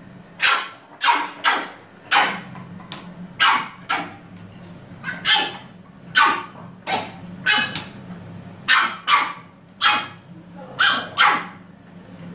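French bulldog puppy barking repeatedly in short, high yaps, often two or three in quick succession, some twenty in all.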